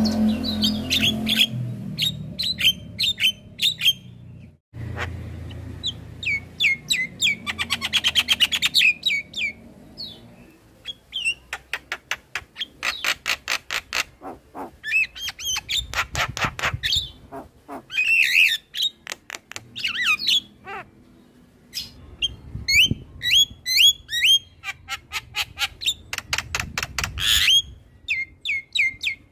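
Javan myna singing a varied song: clusters of sharp chirps and whistles alternate with fast rattling runs of clicks, in phrases separated by short pauses.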